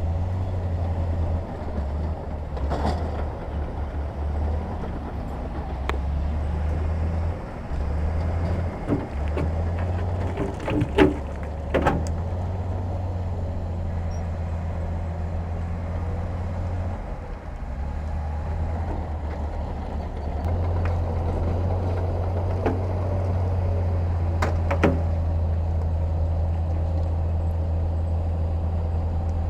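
Heavy diesel earthmoving machinery running with a steady deep drone, broken by sharp metallic clanks and knocks several times; the loudest come about eleven seconds in, with another near twenty-five seconds.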